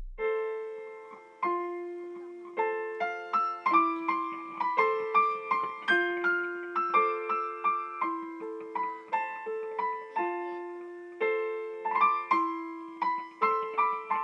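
Solo piano playing a flowing run of single notes over a lower note that changes about once a second, each note struck and left to ring and fade.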